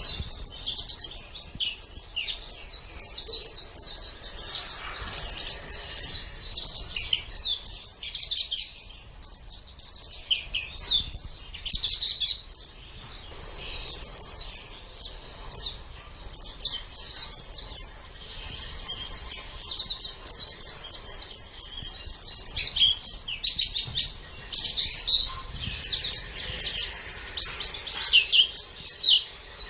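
White-eye (pleci) singing a fast, continuous, high-pitched warble of rapid chirps and short up-and-down notes, with only brief pauses.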